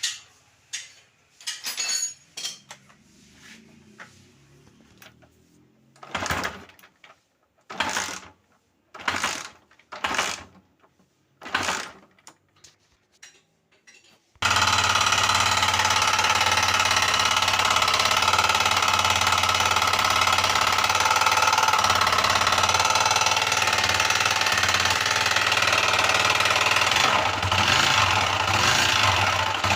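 Motorcycle engine with a noise in the engine. First a few clicks and knocks, then five short bursts about a second apart. About halfway through, the engine starts suddenly and runs steadily with a rapid, even mechanical clatter.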